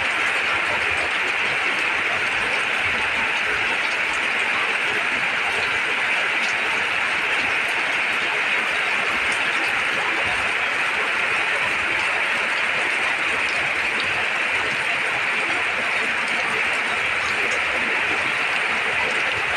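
Heavy rain pouring steadily onto corrugated metal roofing, a dense, even hiss that does not let up.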